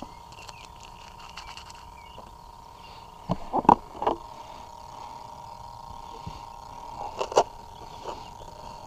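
Hands handling a model speedboat's hatch cover: two short clusters of sharp knocks and scrapes, the louder one about three and a half seconds in and another near the end, over a faint steady high tone.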